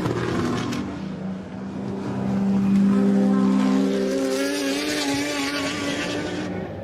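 Ferrari 250 GT SWB competition car's V12 engine at steady high revs as the car passes, loudest about three seconds in, then fading away.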